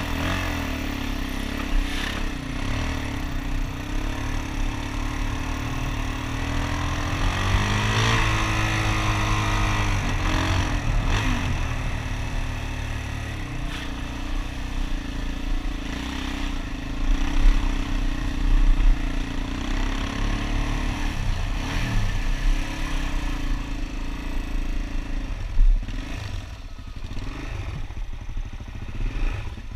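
Suzuki DR-Z400 single-cylinder four-stroke trail bike engine running at low road speed, with a heavy low rumble. About seven seconds in it revs up, rising in pitch, then settles back a few seconds later and runs steadily again.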